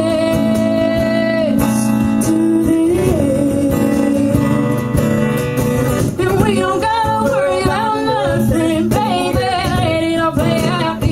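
Live acoustic country-pop song: a singer holds a long note over strummed guitar, then sings a wavering, gliding melodic run in the second half.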